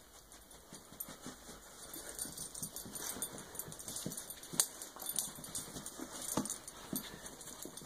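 Dog at play with a stuffed toy held in a person's hand: short scuffles and light knocks from paws and the toy, with small dog noises now and then. A sharp click stands out about halfway through.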